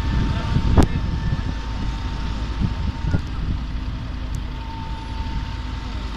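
Heavy diesel engines running with a steady low rumble. A thin steady high tone sounds over it, stopping about three seconds in and coming back briefly near the end, and there is one sharp knock about a second in.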